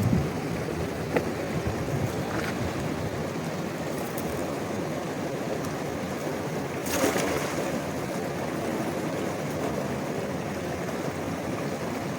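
Steady rushing of river water, with a brief louder burst of noise about seven seconds in.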